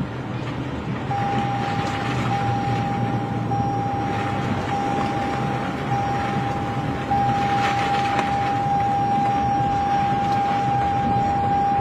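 Tornado wind rushing against a phone's microphone, with a steady high-pitched tone that starts about a second in and holds with brief breaks, a little louder from about seven seconds in.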